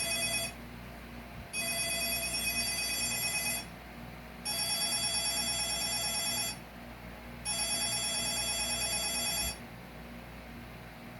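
Telephone ringing with an electronic ring in bursts of about two seconds, a second apart: the end of one ring, then three more, then it stops. It goes unanswered, a missed call.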